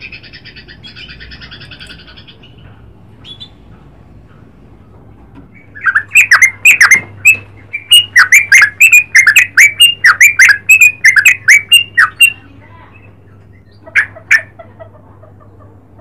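Yellow-vented bulbul (trucukan) calling: a faint buzzy chatter at first, then from about six seconds in a loud run of sharp, downward-slurred notes, about four a second, lasting some six seconds. Two more notes follow near the end.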